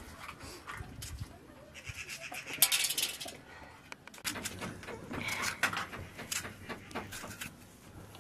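Livestock bleating several times, with light knife clicks as a tomato is sliced by hand over a metal bowl. A short, loud rasp comes about two and a half seconds in.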